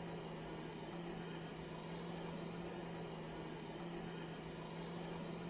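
A steady low hum, unchanging in pitch, over a faint even hiss.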